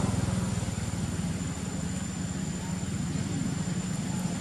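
A steady low rumble like a motor running, with a thin, high steady whine above it.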